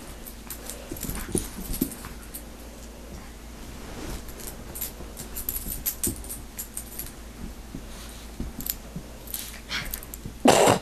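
A chihuahua tussling on carpet: frequent light jingling and scuffling as it plays, with a short, loud noisy burst near the end.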